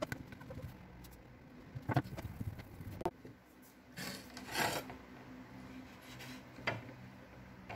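A lemon being rolled and pressed under the hand on a hard surface: a scraping rub about four seconds in, with a few light knocks. The rolling softens the peel so the lemon gives more juice.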